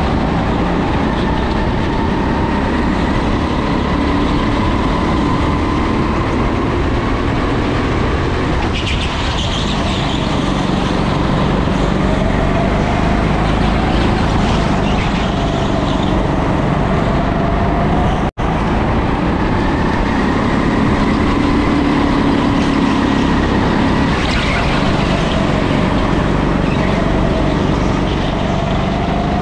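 Onboard sound of a racing go-kart lapping a track: its engine note rises as it accelerates and falls as it slows for corners, over and over. The sound cuts out for an instant about eighteen seconds in.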